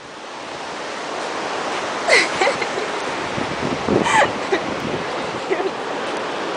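Steady rushing outdoor noise, with short vocal sounds about two seconds and four seconds in.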